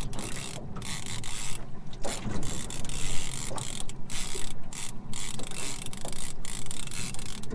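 Fishing reel being wound against a heavy fish, its gears and ratchet giving a fast, uneven clicking, over a steady low rumble.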